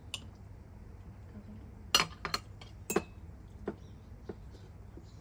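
Tableware clinking at a breakfast table: about six short, sharp clinks of cutlery, plates and glasses, the loudest about two seconds in, over a low steady hum.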